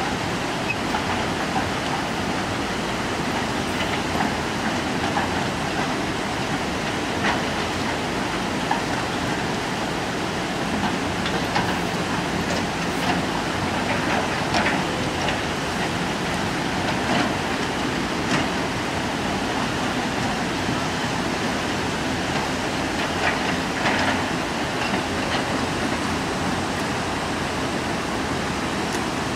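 Steady rushing of a flood-swollen river, mixed with a diesel excavator's engine working, and scattered knocks of rock and bucket every few seconds.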